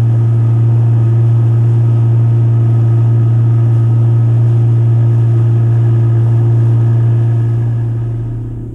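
Boat motor running with a steady, even hum, dying away near the end.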